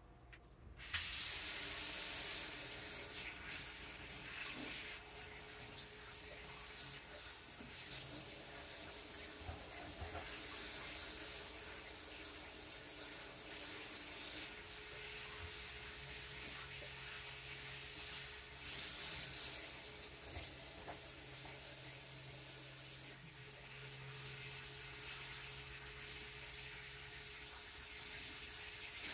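Kitchen sink tap running as hands are washed, the water starting about a second in and swelling and easing now and then.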